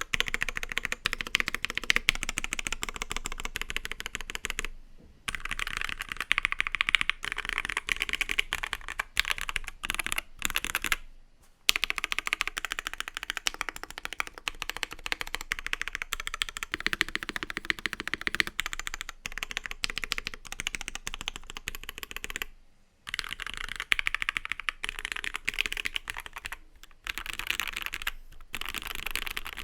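Custom mechanical keyboard with lubed and filmed C3 Tangerine V2 linear switches on a gummy-worm-mounted aluminium plate, the modifier keys pressed in rapid runs. The first run is on CRP Tulip keycaps, deeper and less clacky. After a short pause about eleven seconds in, it is on GMK WoB keycaps, higher-pitched and clackier.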